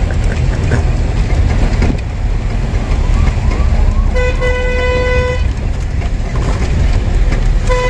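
Low engine and road rumble inside a moving truck's cab. About four seconds in, a vehicle horn gives one long blast of just over a second, and it gives a short toot near the end.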